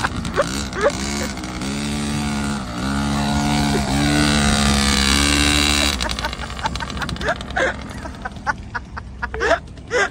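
Mini motorcycle (pocket bike) engine revving as it is ridden off, its pitch dipping and rising again several times and getting louder, then stopping abruptly about six seconds in. Short scattered sounds before and after.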